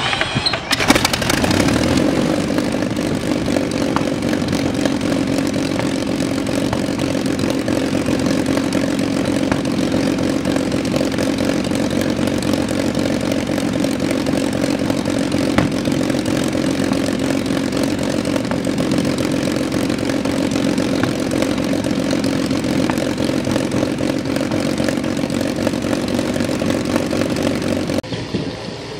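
Rolls-Royce Merlin liquid-cooled 27-litre V-12 aero engine starting up on a test stand, catching within the first couple of seconds, then running steadily with its propeller turning until the sound cuts off near the end.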